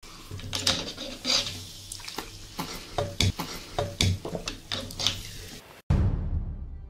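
Wooden chopsticks knocking and scraping inside a plastic Coca-Cola bottle: about a dozen irregular sharp clicks over a low hum. Just before the end the sound cuts off and a sudden deep boom comes in.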